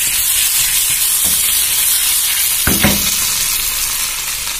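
Boiled potato rounds sizzling in hot oil and lamb tail fat in a frying pan as the pan is shaken. One knock comes a little under three seconds in.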